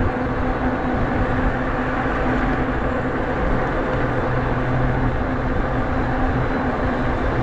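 Wind rush and road noise while riding a Nakto F6 electric fat bike at steady cruising speed on throttle alone, not pedalling. A steady low hum runs under the noise.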